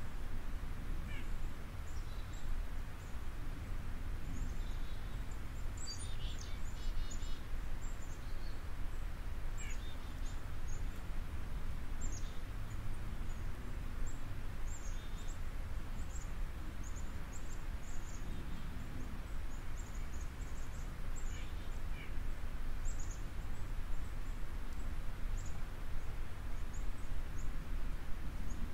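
Steady low background rumble with faint, scattered bird chirps.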